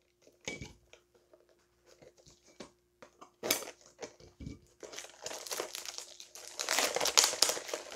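A few scissor snips cutting into a small cardboard mystery-mini box, then its packaging crinkling and tearing as it is pulled open by hand from about five seconds in, loudest near the end.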